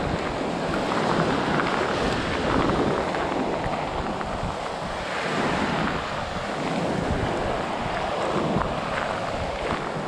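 Sea waves washing onto a sandy shore, a steady rushing that swells and eases, with wind buffeting the microphone.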